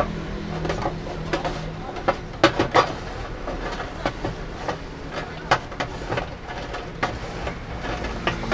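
Seasoned French fries being tossed and mixed in a stainless-steel tray: irregular clatter and scraping of a utensil against the metal, with fries landing, over a steady low hum.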